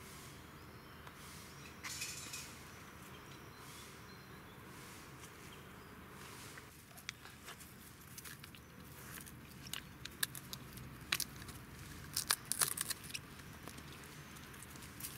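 Two Jack Russell terriers nosing and mouthing a snapped tree trunk and the twigs around it: scattered small clicks and crackles, thickest in the second half, over a quiet outdoor background.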